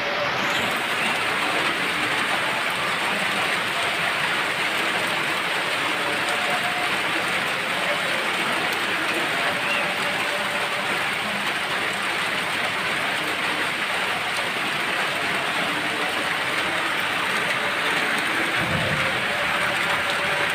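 Steady rain falling, an even hiss with no let-up. A brief low rumble comes a little before the end.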